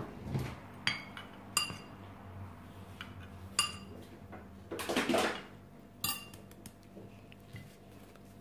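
Small spice jars clinking as they are handled and filled with ground spice: a few sharp clinks with a short ringing, spaced a second or more apart, and a brief scraping rustle around five seconds in.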